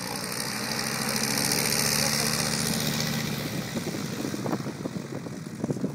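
Light aircraft's piston engine and propeller running, swelling to a peak about two seconds in and then easing off. Crackly ticks follow in the second half.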